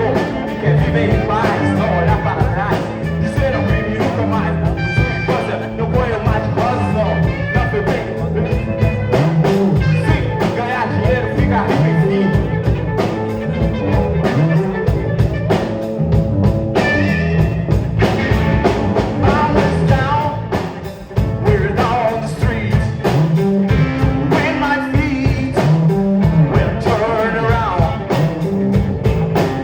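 Rock band playing live, with singing over guitar, bass and drums; the music drops away briefly about two-thirds of the way through before coming back in.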